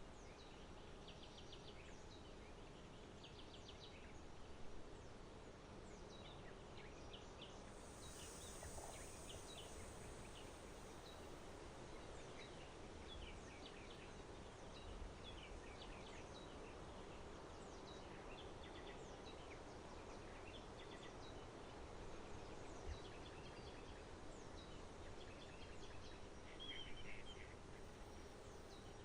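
Faint lakeside ambience: small songbirds chirping and twittering on and off over a steady low background rumble, with a brief high hiss about eight seconds in.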